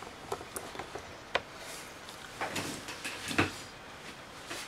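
Handling noise as a camera is moved: scattered light clicks and knocks with rustling, the sharpest click a little over a second in and a duller knock around three and a half seconds in.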